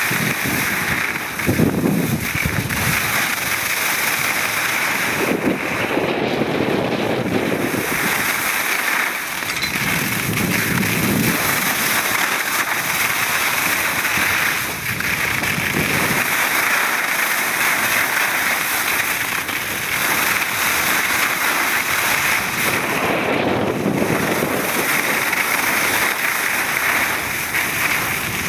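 Wind rushing over the microphone as a skier runs downhill, with skis sliding and scraping on the snow; a steady noisy rush that swells lower and louder every few seconds.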